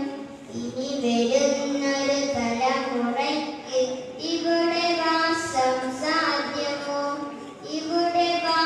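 A boy singing lines of a Malayalam poem into a microphone, in long held notes that step up and down in pitch.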